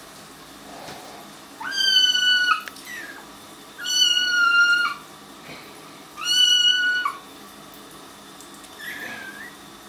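Young kittens meowing: three loud, high-pitched, drawn-out meows about two seconds apart, each lasting about a second, then a fainter, shorter one near the end.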